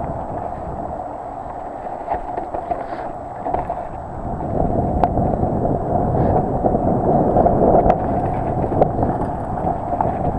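Wind rushing over the microphone and tyre rumble as a mountain bike descends a dry dirt singletrack, growing louder about halfway through as speed builds, with a few sharp clicks and rattles from the bike.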